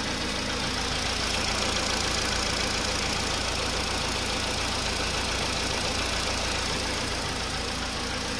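Skoda Rapid's 1.6 CFNA four-cylinder petrol engine running steadily with the knock its owner complains of, a little louder for a few seconds near the start.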